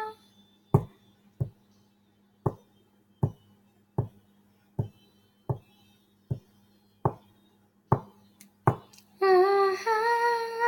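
A slow, steady beat of about a dozen sharp hand-made taps, one every three-quarters of a second, keeping time while the song's vocal pauses. A woman's singing voice comes back in with a held note near the end.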